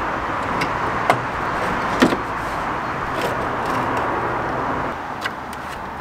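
Sharp plastic clicks and knocks as a car's front bumper and wing are pulled off their clips, the loudest about two seconds in, over a steady hiss-like background.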